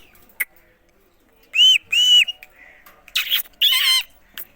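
Indian ringneck parakeet calling: two short, arched whistled notes, then two harsher screechy calls.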